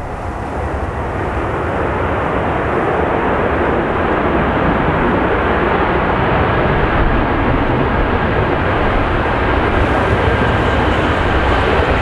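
Airbus A320-200 jet airliner's engines during the landing rollout: a loud, steady rush of engine noise that builds over the first two seconds and then holds, with a faint steady whine in it.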